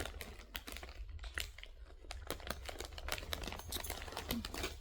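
Dry, irregular crackling and crunching at close range from a snack of nacho cheese tortilla chips, with dozens of small sharp cracks in quick, uneven succession.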